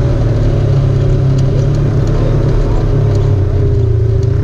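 Off-road vehicle engine running steadily at an even, low speed, with a few faint clicks over it.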